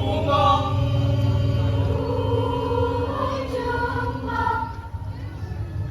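High-school choir singing in parts, holding long sustained notes; the singing drops away about five seconds in.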